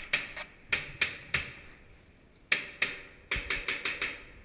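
Airsoft guns firing a string of sharp single shots with short echoing tails. Five or so come about a third of a second apart, then after a pause of about a second a quicker run of about six.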